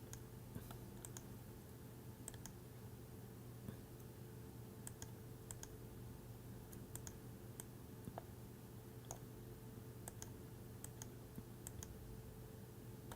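Faint, scattered small clicks and taps, irregular and a fraction of a second apart at most, over a steady low electrical hum.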